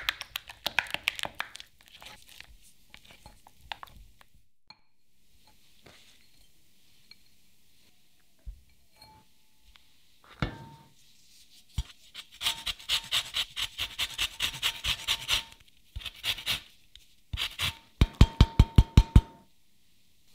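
Lemon rind grated on a fine rasp zester over a glass bowl: runs of quick rasping strokes, about four a second, starting about midway and again near the end. Near the start, a silicone spatula scrapes and clicks against the glass bowl.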